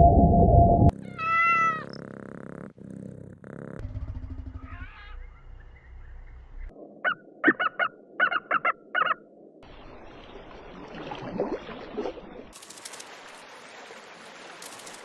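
A string of animal calls. A humpback whale call stops about a second in, a single short meow follows, and later comes a run of six short, sharp, high calls from a bald eagle. A steady hiss fills the end.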